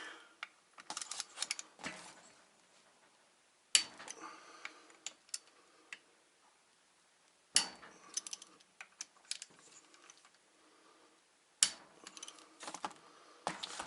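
Hand tool clicking and ticking on the metal of a viscous fan clutch as its T27 Torx fan screws are worked out by hand: three sharp snaps about four seconds apart, with lighter ticks and scrapes between.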